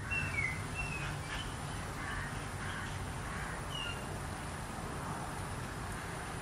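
Outdoor background with birds calling: a few short high chirps in the first second and another about four seconds in, over a steady low rumble.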